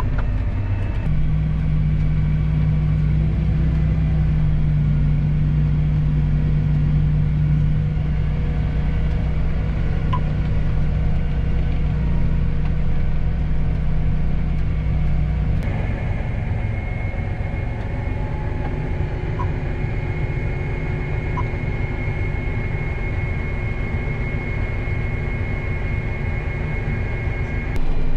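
Harvest machinery engine running steadily: a low drone with a steady whine above it. The sound changes abruptly about a second in and again a little past halfway, the later part lighter in the low drone and carrying a higher whine.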